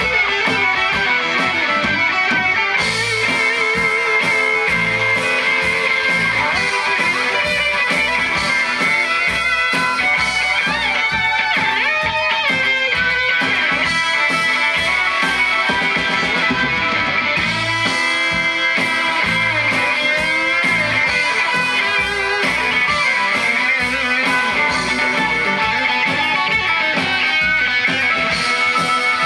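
Live band playing an instrumental passage with no vocals: electric guitar, fiddle, upright bass and drum kit, with a steady beat.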